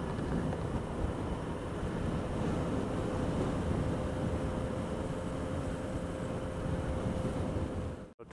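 Motorcycle riding along at steady speed, heard from an onboard camera: engine running under wind noise, with a thin steady tone held through most of it. The sound cuts out abruptly for a moment near the end where the recording breaks.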